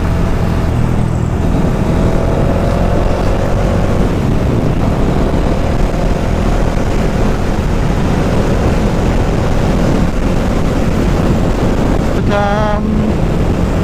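A motorcycle being ridden at road speed: steady wind rush on the microphone with the engine running underneath.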